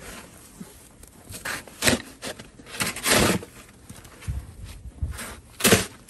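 Plastic snow shovel scraping and scooping packed snow, several separate strokes, the loudest near the end.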